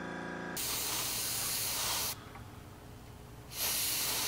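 Gravity-feed dual-action airbrush spraying through a stencil card, in two hissing bursts: one of about a second and a half, then a pause, then a shorter one near the end. A short hum sounds at the very start.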